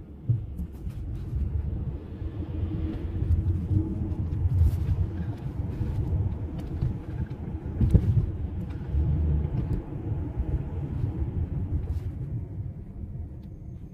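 Steady low engine and road rumble inside a moving car's cabin, with a few short knocks, the loudest about eight seconds in.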